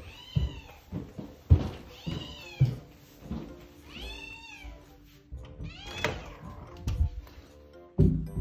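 Cat meowing repeatedly, four drawn-out meows that rise and then fall in pitch, mixed with a few sharp thuds. The meows are the calls of a cat lonely at being left home alone.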